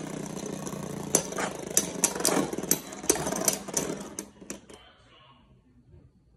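Two Beyblade spinning tops whirring around a plastic stadium bowl and clattering against each other, with sharp irregular clicks as they collide. The whirring dies away about five seconds in as the tops run down and stop.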